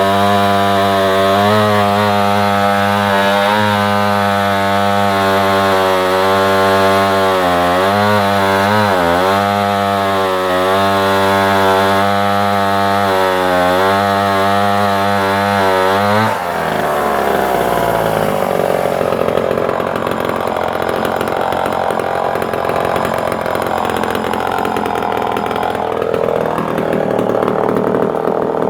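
A Homelite C51 77cc two-stroke chainsaw cutting through a solid, knotty log. Its engine note holds steady under load, apart from a brief dip about eight or nine seconds in. About sixteen seconds in, the sound changes abruptly to a rougher, less even running.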